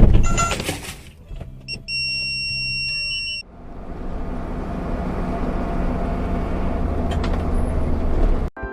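A loud bang at the very start, then a steady high electronic beep lasting about a second and a half. Then a vehicle's steady running and road noise, which grows slightly louder before cutting off suddenly near the end.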